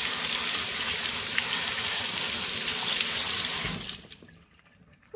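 Kitchen tap running onto cherry tomatoes in a plastic colander as they are rinsed, a steady splashing flow that is shut off about four seconds in.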